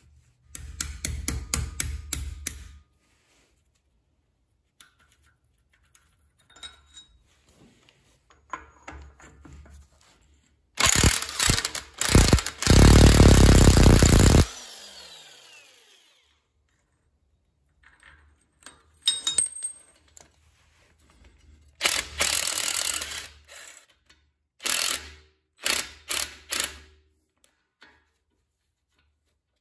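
Hand ratchet clicking rapidly for about two seconds as it turns a bolt on the hub of a Dana 30 front axle knuckle. About a third of the way in, an impact wrench hammers in a couple of short bursts and then one longer run, and its whine falls away as it spins down. Several shorter loud bursts of tool noise follow in the second half.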